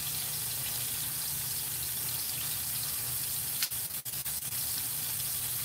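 Steady sizzle of flour-dredged beef steaks frying in hot shortening in a cast-iron skillet.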